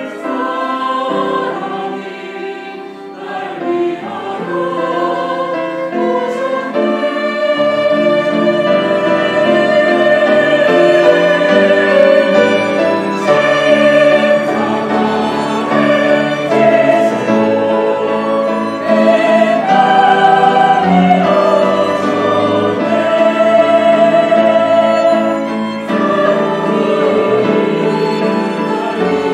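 Mixed church choir singing a Korean hymn in parts, accompanied by violin, cellos, flute, clarinet and piano. The music is softer for the first few seconds, then swells louder and fuller.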